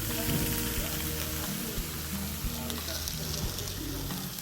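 Pork sizzling steadily on a grill over oak-wood charcoal.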